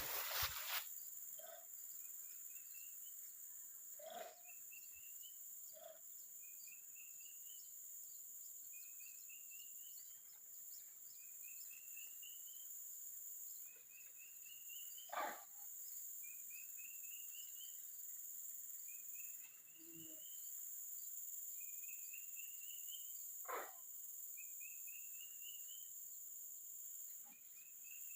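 Steady high-pitched insect drone, with a short call of quick notes rising in pitch repeating every one and a half to two seconds. This repeating call is the unexplained 'strange sound'. A few faint knocks are heard, most clearly about fifteen and twenty-three seconds in.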